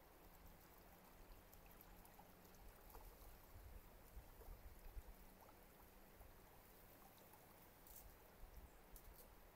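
Faint, steady rush of a fast-flowing creek swollen with rain, with a few light ticks near the end.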